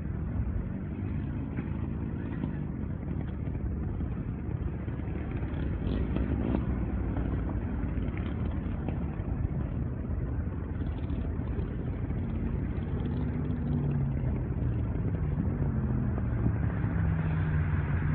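A motor or engine running with a steady low rumble; its pitch drifts, and from about two-thirds of the way through a deeper running tone grows stronger.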